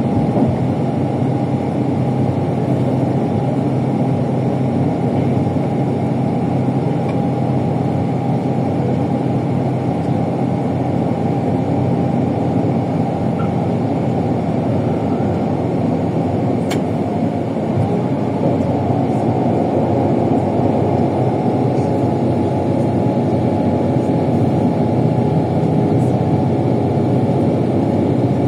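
Bus engine and road noise while the bus is driving: a steady low drone that keeps on without breaks.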